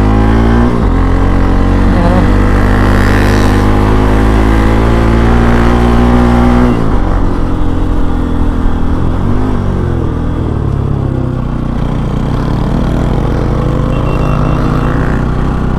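Bajaj Pulsar NS200's single-cylinder engine pulling hard while riding, its pitch climbing slowly through a gear after a shift about a second in, then dropping as the throttle eases around seven seconds in. The rider feels its pull is down since a timing change.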